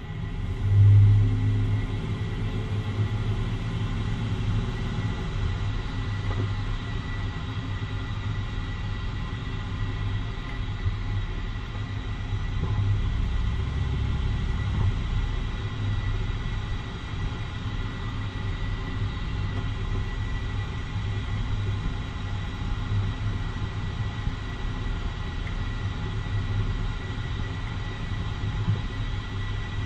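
2013 Jeep Wrangler Unlimited driving, a steady low rumble of the running vehicle, with one loud low thump about a second in.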